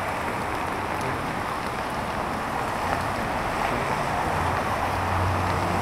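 Steady hiss of rain and car tyres on a wet city street, with a low engine hum from traffic swelling about two-thirds of the way in.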